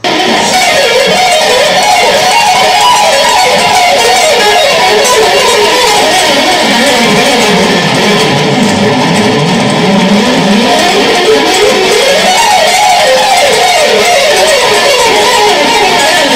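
Electric guitar played in a fast shred style: rapid runs of notes sweeping up and down the neck without pause.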